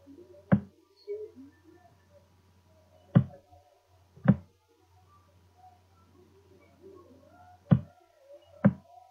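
Five sharp clicks of a computer mouse, unevenly spaced, over a faint low hum.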